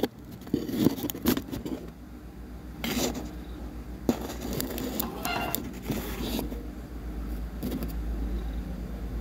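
Handling noise on a workbench: scattered scrapes and light clicks, over a low steady rumble that grows a little louder near the end.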